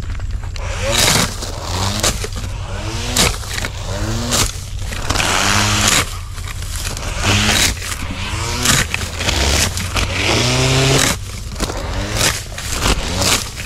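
Total electric grass trimmer cutting grass, its small head-mounted motor whining and swishing through the grass. Its pitch keeps dipping and climbing again every second or so as clumps of grass load the motor and slow it.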